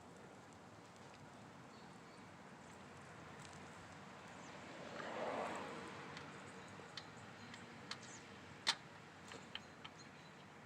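Faint hands-on work at a small engine's oil drain: a soft rushing swell about five seconds in, then several light clicks and taps, one sharper than the rest, as the drain plug is put back in.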